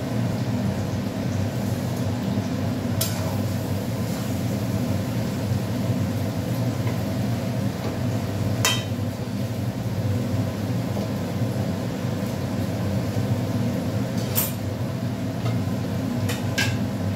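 A metal spatula and pans clinking sharply a few times while onions are stirred in an aluminium kadai, over a steady low rumble from the gas stove or kitchen.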